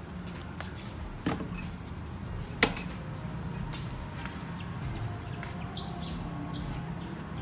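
Steady low hum with scattered faint ticks and two sharp clicks, one about a second in and a louder one about two and a half seconds in.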